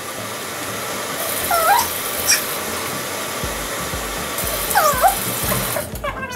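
Kitchen tap running steadily into a cup or bowl, shut off near the end. Two short, high whining cries that bend up and down in pitch sound over it.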